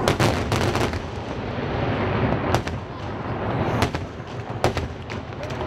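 Aerial fireworks shells bursting: a quick cluster of loud bangs at the start, then single bangs about two and a half, four and almost five seconds in, over a continuous low rumble.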